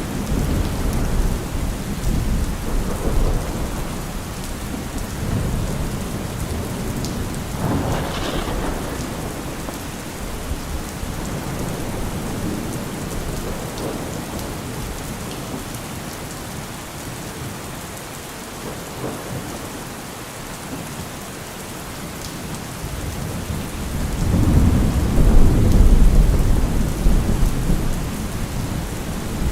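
Thunderstorm: steady rain with rolling thunder. A sharper thunderclap comes about eight seconds in, and a loud, low rumble of thunder builds near the end.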